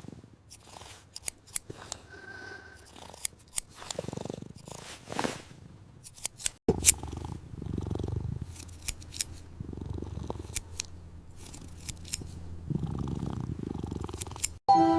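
A cat purring, with many short sharp clicks and snips over it; the purring gets much louder about halfway through.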